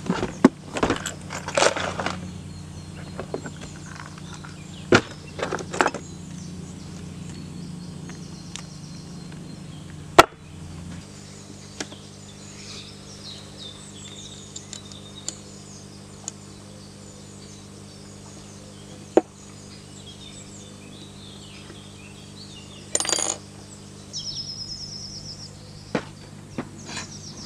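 Scattered clicks and clinks of small metal tools: a plastic toolbox is opened and rummaged in, then a small Allen key turns the hex screw that holds a tomahawk head. Near the end the steel head is worked off its wooden handle. Birds chirp faintly now and then.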